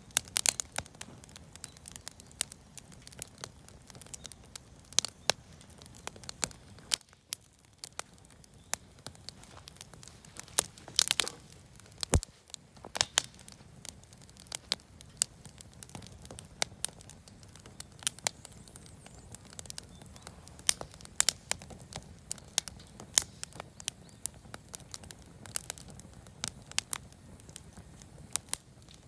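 Campfire of wood offcuts and firewood crackling, with sharp pops and snaps at irregular intervals over a steady low rush.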